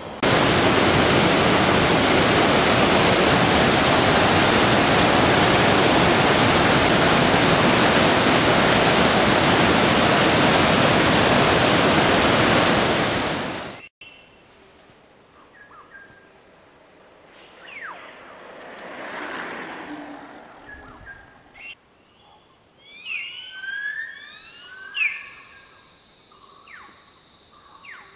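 Loud, steady rushing roar of a jungle waterfall close by, cutting off abruptly about fourteen seconds in. A much quieter stretch follows, with short sweeping chirps of jungle animals a few seconds later.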